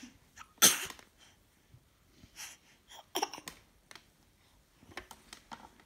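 A young child's pretend coughs: one loud, sharp cough under a second in, then fainter, breathy coughs around two and three seconds in.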